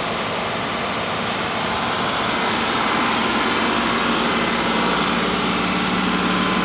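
John Deere 2038R's three-cylinder diesel engine running steadily at raised speed during a forced exhaust-filter (DPF) regeneration. It grows louder over the first few seconds as the microphone nears the tractor.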